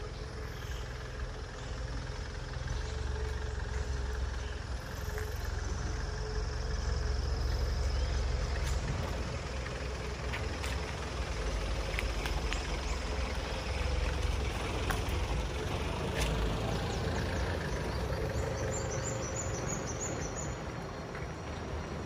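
Outdoor ambience: a steady low rumble with faint scattered ticks, and a quick run of short high chirps about nineteen seconds in.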